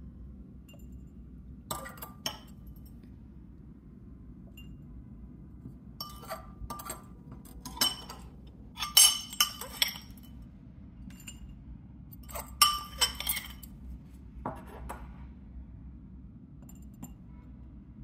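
Chunky potting mix with bark and pumice being dropped and pressed into a small ceramic pot: scattered clinks and gritty rattles in several short bursts, the loudest about halfway through and again a few seconds later.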